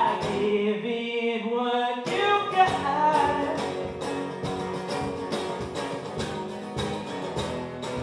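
Man singing with an acoustic guitar: a long held note with the guitar ringing for about the first two seconds, then the guitar strumming a steady rhythm.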